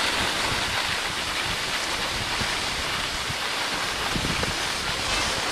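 Steady rushing hiss of skis sliding over packed snow, mixed with wind buffeting the microphone as the skier moves downhill.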